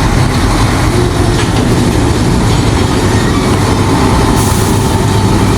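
A steady, loud, low rumble of engine noise.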